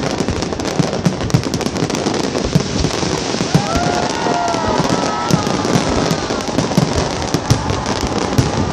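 Fireworks display going off: a dense, continuous run of rapid bangs and crackles, with a few brief whistling glides about halfway through.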